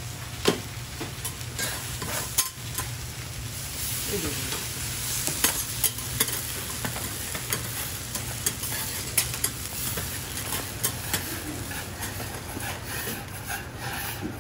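Hiroshima-style okonomiyaki sizzling and frying on a steel teppan griddle, a steady hiss with a few sharp clicks scattered through it.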